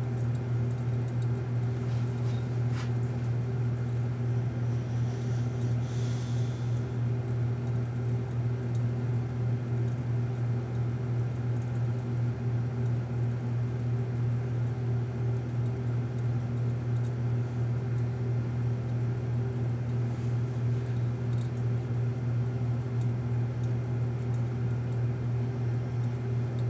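Steady low electrical hum from the rework bench equipment, unchanging throughout, with a few faint ticks.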